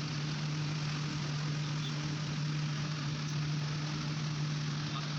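A steady motor hum: one constant low tone over an even hiss, unchanging throughout.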